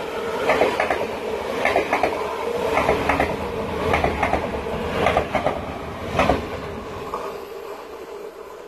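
NS VIRM double-deck electric train passing close by, its wheels clacking in pairs about once a second over a steady running hum, fading over the last two seconds as the end of the train goes past.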